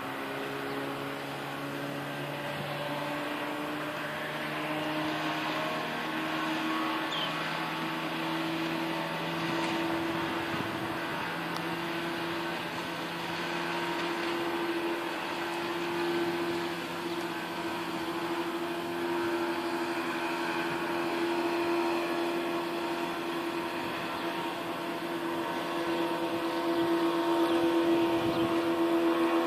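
The S.S. Badger's shipboard machinery humming steadily as the ferry gets under way: a drone of several steady tones that drift slightly in pitch and grow louder over the last few seconds.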